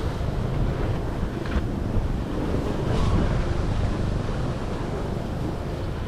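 Wind buffeting the microphone over the rush of ocean waves against a sailing yacht at sea, with brief louder surges about one and a half and three seconds in.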